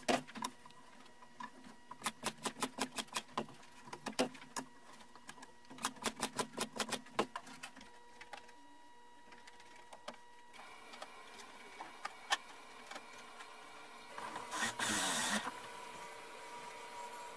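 Bursts of rapid, sharp mechanical clicks, several a second, from hand tools working on wood. After about ten seconds the sound cuts to a steady hiss, with a brief louder rushing noise near the end.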